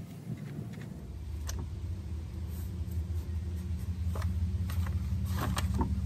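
A steady low mechanical hum, like an engine running, sets in about a second in and grows slightly louder, with a few light metal clicks and knocks over it.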